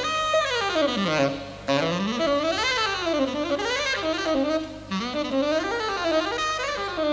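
Jazz saxophone soloing in fast runs that sweep up and down the horn, with brief breaks between phrases.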